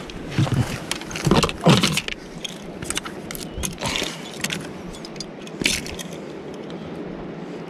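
Irregular clicks and knocks with a light rattle, like small gear being handled, the loudest knocks coming between about one and two seconds in, over a steady hiss.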